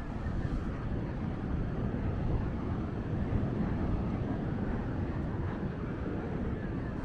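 Wind buffeting the microphone: a steady, rumbling noise, heaviest in the low range.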